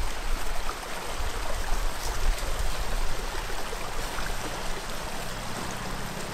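Stream water rushing and trickling steadily over rocks, with a low rumble underneath.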